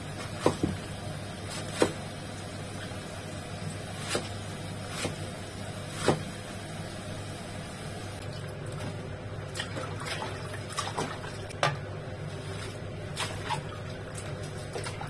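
A large kitchen knife cutting a napa cabbage into wedges on a thick wooden chopping block. Each cut ends in a sharp knock of the blade on the wood, spaced irregularly a second or several apart. Near the end, cabbage pieces splash in a bowl of water, over a low steady hum.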